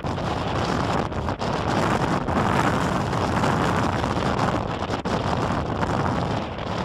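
Storm wind blowing hard across the microphone, a dense rushing noise that swells in gusts, loudest around the middle.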